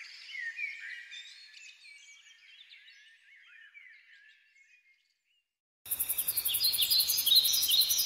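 Many birds chirping and twittering together, fading away over the first few seconds. After a second of silence, more bird calls cut in abruptly over a fast, very high pulsing buzz.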